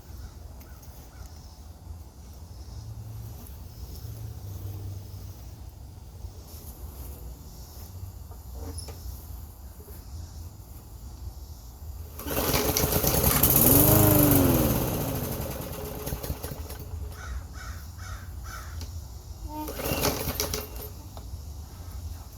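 Gas push mower being pull-started and failing to keep running: about twelve seconds in the engine catches, revs up and dies away within a few seconds, and another brief burst comes near the end. The owner suspects bad fuel.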